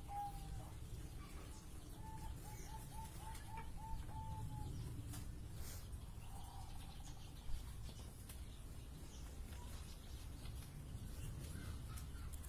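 Zebra dove cooing: a quick run of about ten short, clipped notes at an even pitch, about four a second. About halfway through there is a single sharp click.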